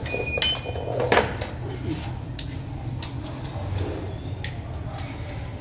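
Scattered metal clinks and knocks of hand tools and engine parts being handled during engine disassembly, over a steady low hum.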